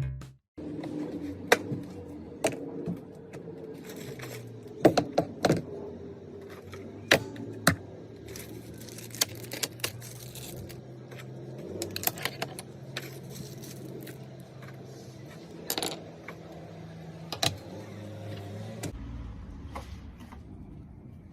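Scattered sharp clicks and light clatter of small hard objects being handled, over a faint steady low hum that fades out near the end.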